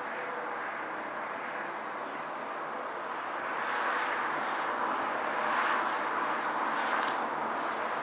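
Distant city road traffic as a steady wash of noise, swelling louder in the second half.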